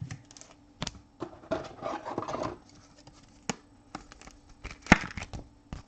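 Trading cards being handled on a table: scattered clicks, taps and short scraping rustles of card stock, with one sharper click about five seconds in.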